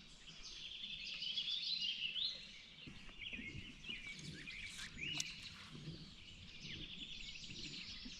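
Faint birdsong: a string of short chirping notes that slide up and down in pitch.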